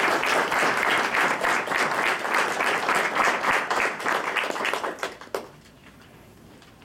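Audience applauding with many hands clapping at once, dying away about five seconds in.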